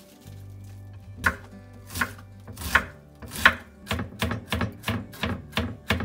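Chef's knife mincing an onion on a wooden cutting board: a few slow, separate chops, then a quicker run of about three chops a second from about four seconds in.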